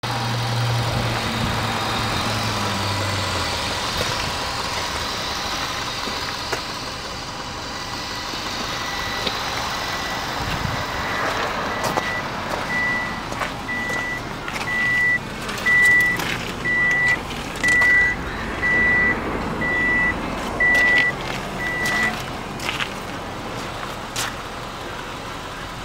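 Electronic warning beeps, one steady tone repeating about once a second, over a steady outdoor background noise. They start faintly about eight seconds in, grow louder and stop a few seconds before the end. A few short knocks come in between.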